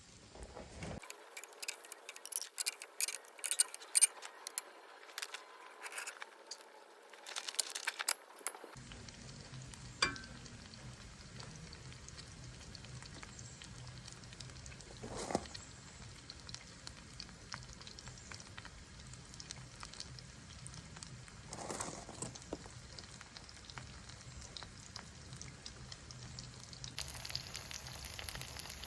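Food sizzling as it fries in a pan, with scattered clicks and clinks in the first several seconds.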